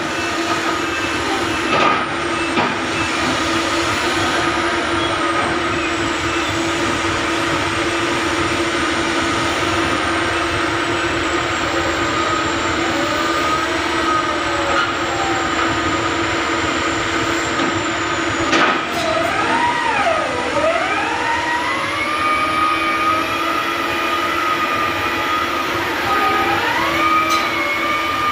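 Rotary piling rig working, its diesel engine and hydraulics running steadily with a high whine. A sharp click comes about two-thirds of the way in, after which the whine swings up and down in pitch a few times.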